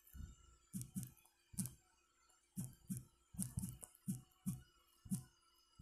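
Typing on a smartphone's on-screen keyboard: about a dozen short, soft taps at an uneven pace.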